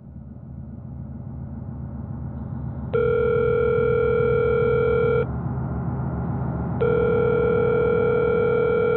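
Telephone ring tone heard down the line: two steady rings about two seconds long each, the second starting about four seconds after the first, as a call waits to be answered. Under them a low rumbling drone swells in.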